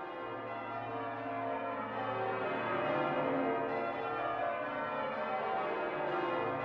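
Church bells ringing changes, many bell tones sounding over one another in a continuous peal that swells gently.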